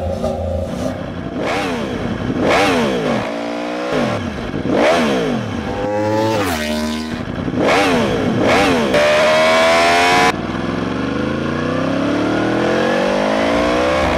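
A high-revving engine blipped up and down several times in quick rises and falls, then pulling through a long, steadily rising run of revs. The sound cuts off abruptly about ten seconds in before the long rise begins.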